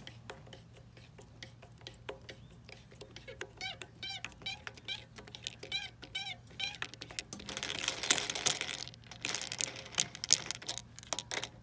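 A plastic valve cap is unscrewed by hand from a pressure washer pump: a run of small clicks from the threads and the gripping hand, with a string of short squeaks in the middle. Louder rustling handling noise comes about eight seconds in as the cap and its spring come free.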